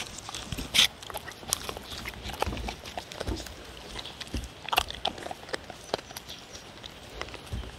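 Dogs licking and chewing food scraps off a paper plate: irregular wet smacks and clicks of tongue and mouth against the plate.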